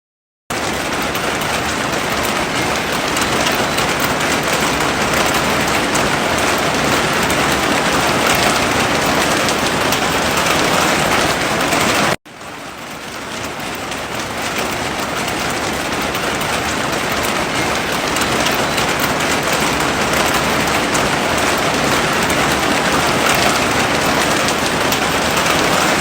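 Heavy rain falling, a dense steady hiss. It starts abruptly about half a second in, cuts out briefly about twelve seconds in, then fades back up over a couple of seconds.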